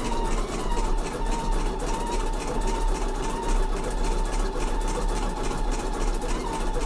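Embroidery machine stitching a free-standing lace design: a steady run of rapid, even needle strokes over a motor whine that wavers slightly in pitch.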